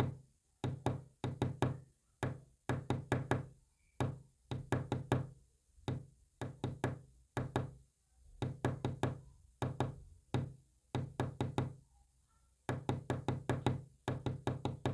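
Knocking on a hard, hollow-sounding surface, in quick clusters of three to five knocks broken by single knocks and short pauses: an irregular tapped pattern, presumably Morse code being knocked out.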